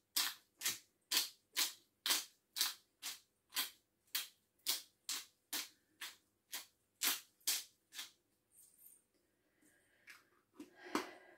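Hand pepper mill being twisted to grind pepper, a regular crunching grind about twice a second, which stops about eight seconds in.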